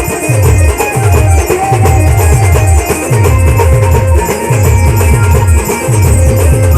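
Loud instrumental band music with a heavy drum beat: quick runs of deep drum hits, each dropping in pitch, under sustained melody notes.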